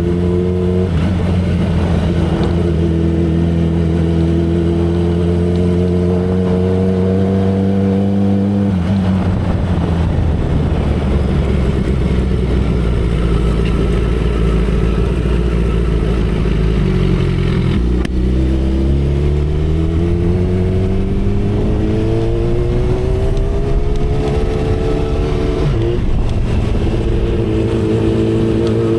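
2012 Kawasaki Ninja ZX-10R's 998 cc inline-four engine at road speed, over constant wind rush. Its note climbs slowly, falls away about nine seconds in, sinks to a low point about halfway through, then climbs steeply again, with a brief step in pitch near the end, like a gear change.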